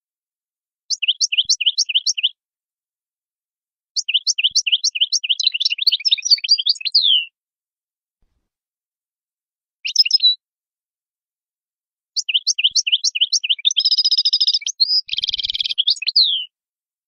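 European goldfinch singing in four bursts of fast, sliding twittering notes with silent pauses between them. The longest burst, near the end, includes a buzzy trill.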